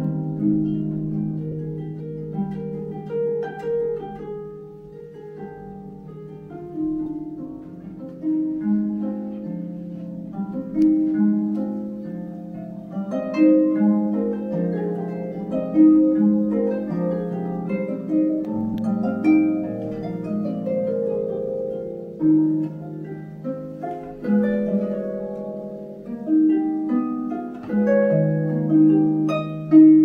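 Concert pedal harp played solo: plucked notes and chords ringing on and overlapping above a moving bass, with louder accented chords every second or two.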